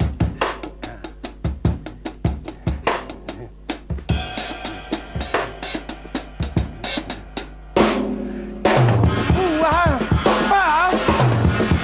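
Drum kit playing a triplet-based groove: quick, steady bass drum and snare strokes with light ghost notes, then cymbals ringing over the beat from about four seconds in. A hard accent comes just before eight seconds. From about nine seconds in, a wordless vocal line slides up and down over the drumming.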